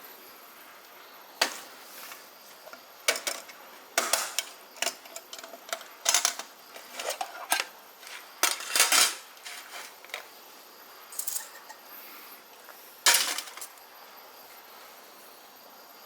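Thin stainless steel plates clinking and clattering against each other as they are handled, in irregular sharp strikes, some in quick clusters.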